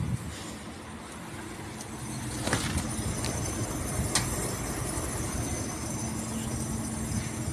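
Tachiair (Chigo) air conditioner running in heat mode: a steady mechanical hum that grows louder about two seconds in. Two sharp clicks are heard within it.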